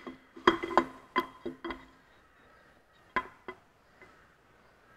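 Camshaft of a Ferguson 23C diesel engine being slid out of the block by hand, its lobes and journals clinking against the housing and bearing bores. A quick run of ringing metal clinks comes in the first two seconds, then two more about three seconds in.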